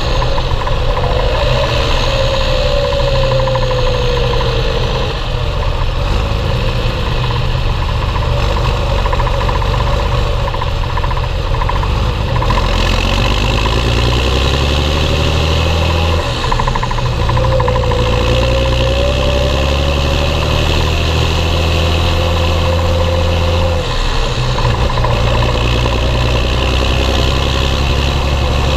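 Belarus 1221.3 tractor's diesel engine running steadily under load while hauling loaded grain trailers. Its pitch shifts a few times, and a fainter whine rises and falls over the engine.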